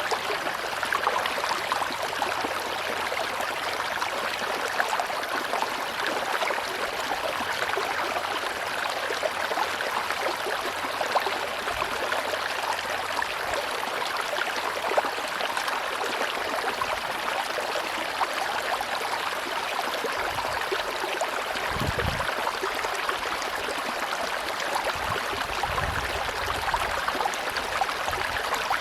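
A tropical river flowing with a steady rush of water, with a couple of brief low rumbles near the end.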